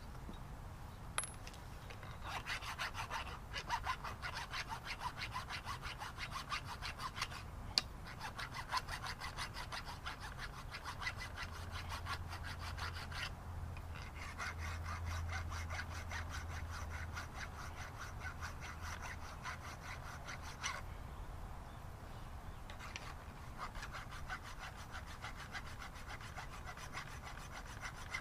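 Rapid back-and-forth hand scraping strokes, such as cleaning a part by scrubbing or filing. They come in long runs broken by two short pauses.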